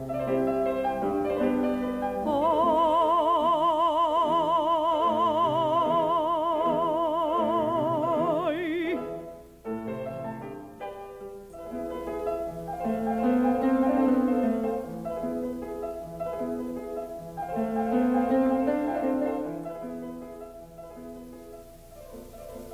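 Classical music with an operatic voice holding one long note with wide vibrato for about six seconds, over instrumental accompaniment. The instruments carry on alone after the note ends.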